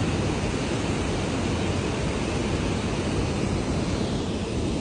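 Steady rushing of flowing river water, a constant noise without breaks.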